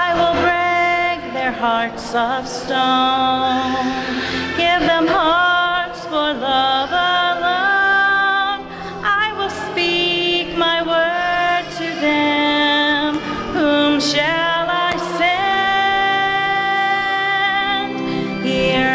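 A woman singing a slow hymn, with long held notes and vibrato over a sustained accompaniment.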